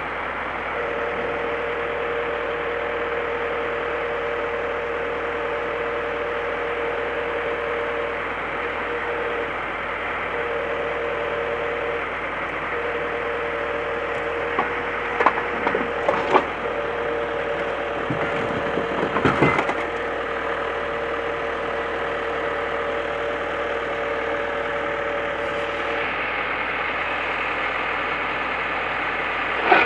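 An Iveco truck crane's engine and hydraulics running steadily with a constant whine while the orange-peel scrap grab is worked. Midway there are a few sharp crunches of the grab biting into a scrapped car, and the whine stops a few seconds before the end.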